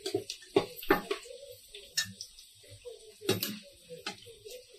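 Metal spatula stirring whole spices and green chillies roasting in ghee in an aluminium pressure cooker, with irregular clinks and knocks of the spatula against the pot.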